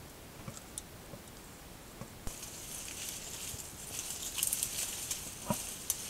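A bull elk moving through dry grass and weeds: a soft rustling and crackling that grows louder a little over two seconds in, with a few sharp ticks, over the steady hiss of a trail camera's microphone.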